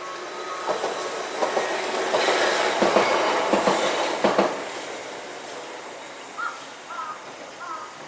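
Tokyu Setagaya Line 300-series tram passing over a level crossing, its wheels clicking over the rail joints. It grows loudest about three seconds in and fades by about five seconds. The crossing alarm's pulsing bell is heard at the start.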